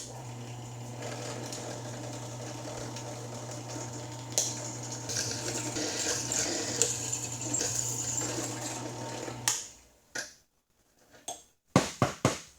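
Drill press motor switched on and running with a steady hum; about four seconds in the bit starts cutting the metal bar stock, adding a high scraping hiss, and the press is switched off about nine and a half seconds in. A few sharp clicks and knocks follow as the part is handled.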